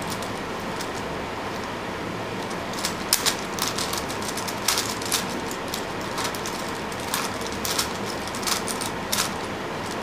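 5x5 Rubik's cube turned by hand: quick clusters of clicks and clacks from its plastic layers, starting about three seconds in, over a steady hiss.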